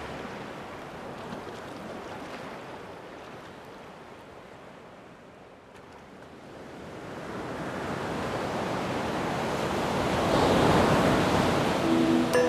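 A rushing, surf-like wash of water noise with no tones. It fades to its quietest about midway, then swells up to its loudest near the end.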